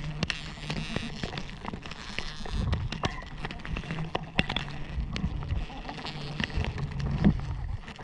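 Giant honey bees (Apis dorsata) humming steadily around their combs, close to the microphone, with frequent knocks and scrapes of hands and rope against the bark.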